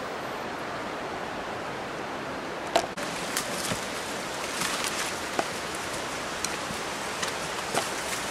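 Steady rushing of a waterfall. About three seconds in, scattered crackles of footsteps and rustling through leaf litter join it.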